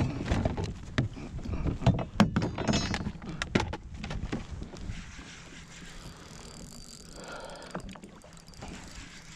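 Knocks and clicks of gear being handled aboard a kayak, dense over the first four seconds, then a quieter steady background.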